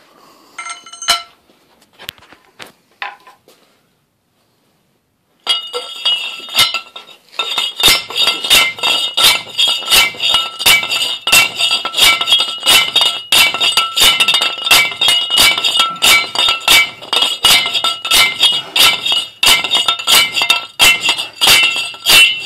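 A few scattered metal clinks, then, from about a quarter of the way in, a steady run of sharp metal-on-metal blows with a ringing tone, about two a second. The blows fall on a steel tube over a Ferguson TO20 rear axle shaft, driving it down against the rear axle bearing.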